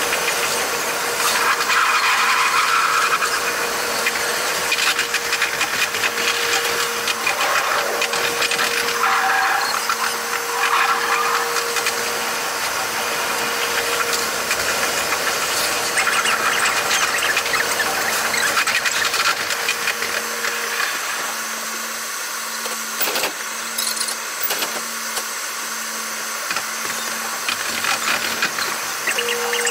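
An electric train's running noise heard from the cab, sped up about eightfold, so it comes out as a high, squealing whir with rapid clicks. A steady hum drops away about two-thirds of the way through and comes back at the end.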